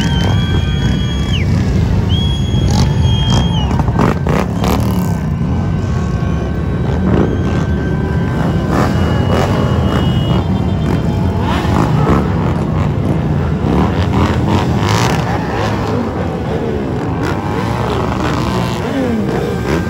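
Many motorcycles riding past in a slow procession, their engines running together in a dense, steady rumble. There are two long high-pitched toots in the first few seconds, and engines are revved up and down near the end.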